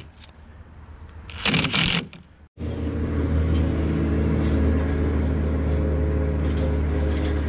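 A DeWalt cordless impact driver runs in one short burst about a second and a half in, driving a screw into a board. After a cut, a steady, constant-pitch engine drone takes over and runs on.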